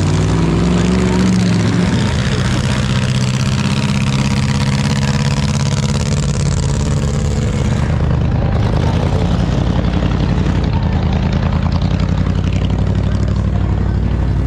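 Demolition derby car engines running loudly, with a rev rising near the start and again at the end.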